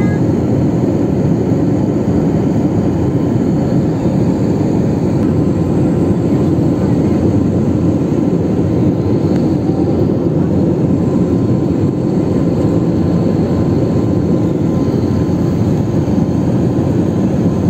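Steady cabin roar of a jet airliner in cruise, engine and airflow noise heard from inside the cabin at a window seat.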